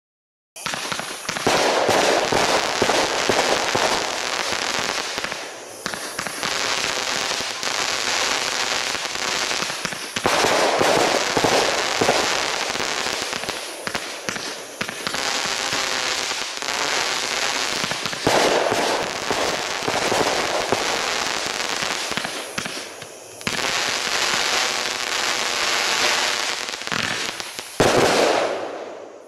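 Crackling Crescendo, a 500-gram, 49-shot consumer firework cake, firing continuously: a dense, unbroken crackling from its crackling shells. It starts about half a second in, swells several times, and has a last loud surge near the end before dying away.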